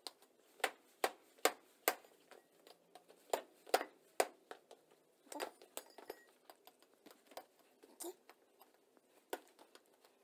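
Shoe stomping repeatedly on a glass pipe on a hard floor: about a dozen sharp knocks and clinks at irregular intervals, and the glass does not break.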